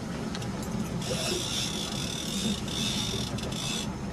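Fishing reel whirring and ratcheting while a hooked silver (coho) salmon is played on the line. It comes in stretches broken by short pauses, over a steady low boat-engine hum.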